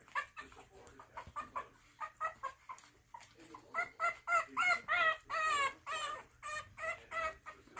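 Young French Bulldog puppies squealing and yelping in a rapid series of short high cries, about two or three a second. The cries grow louder and longer, some rising and falling in pitch, about four to six seconds in.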